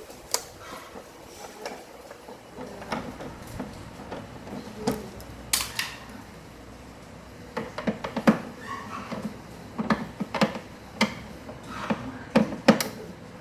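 Irregular clicks, taps and knocks of hands and tools on a Sharp LCD TV's plastic casing and parts as it is taken apart. One sharper knock comes about halfway, and the clicks come more often in the second half.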